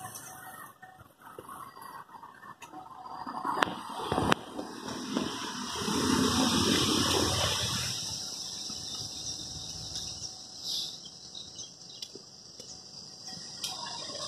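Passing road traffic making a rushing noise, loudest about six to eight seconds in, with a steady high hiss beneath it and a few sharp clicks about four seconds in.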